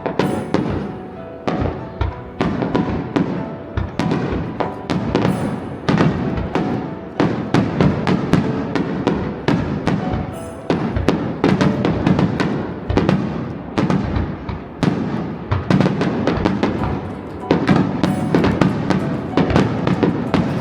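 Fireworks going off in quick succession, several sharp bangs a second, over music.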